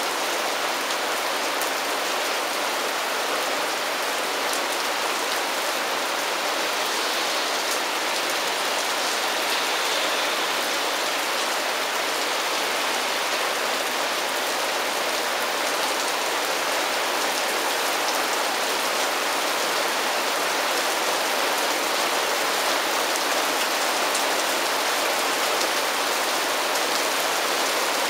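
Heavy thunderstorm rain falling steadily, with the sharp ticks of single drops striking close by.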